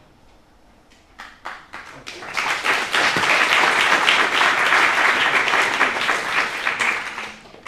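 Audience applauding: a few scattered claps about a second in, swelling into full applause that dies away near the end.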